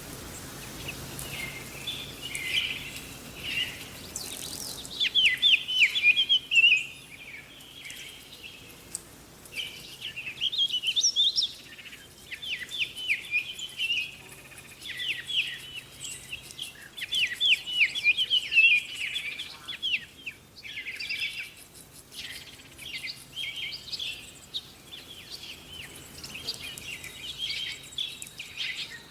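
Small birds chirping and singing in repeated bouts of quick, sharp, falling notes, over a faint steady hiss.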